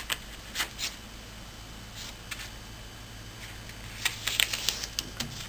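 A square of paper being folded and creased by hand: scattered short crisp rustles and taps, a few at first, then sparse, then a thicker cluster near the end.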